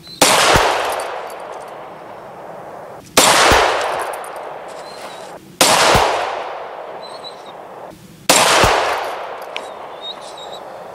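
Four single shots from a Glock 40 MOS long-slide pistol in 10 mm Auto, fired slowly a few seconds apart. Each shot is a sharp crack followed by a long fading echo.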